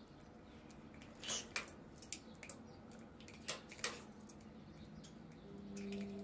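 Faint, scattered clicks and taps of a pet parrot's beak working a plastic bottle cap against its wire cage, most of them between about one and four seconds in. A steady low hum starts near the end.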